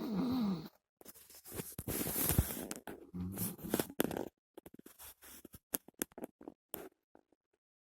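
A sleeping little boy makes a short moaning vocal sound, followed by a few seconds of rustling and scraping and then a run of sharp clicks that stop near the end.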